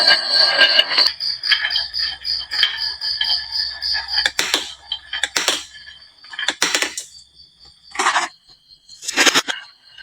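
Glass marbles rolling and clattering down a wooden marble run slope, with a light rhythmic ticking and high ringing. From about four seconds in, five sharp clacks come roughly every second and a quarter as single marbles hit wood and each other.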